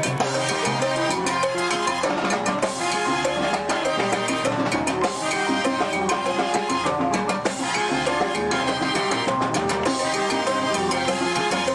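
Salsa band playing an up-tempo number, with percussion and cymbals keeping a steady beat under keyboard and melody lines.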